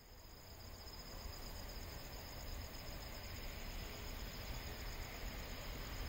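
Insects chirring steadily at a high pitch over a low rumble, fading in over the first couple of seconds.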